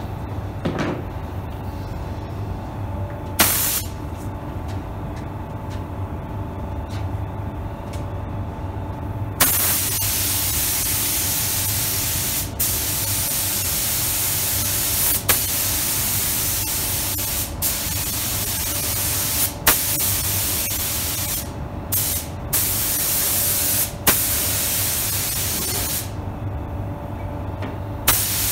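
SATAjet 5000 RP spray gun with a 1.2 mm nozzle spraying clear coat with a loud, steady air hiss, over a steady low hum. One short burst comes about three and a half seconds in. From about nine seconds the gun sprays in long passes, the hiss breaking off for a moment several times as the trigger is let go between strokes.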